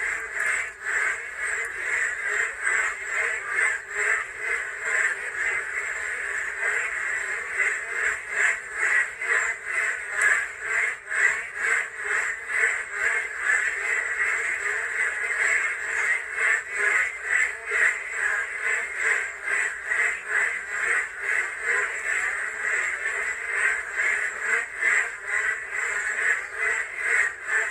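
A chorus of frogs croaking without pause, many calls overlapping in rapid pulses.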